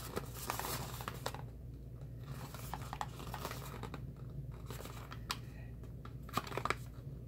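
Hands handling a small cardboard product carton: rustling and scraping of the box, with scattered light taps and clicks, over a steady low hum.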